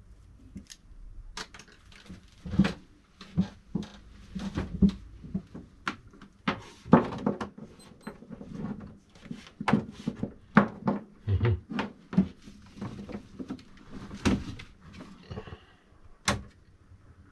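Irregular knocks and clunks, with some scraping, of 3D printer parts and packaging being handled and set down during unboxing.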